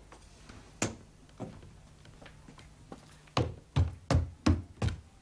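Hard-soled footsteps on a wooden floor: two single steps early, then five sharp knocking steps in quick even succession in the second half.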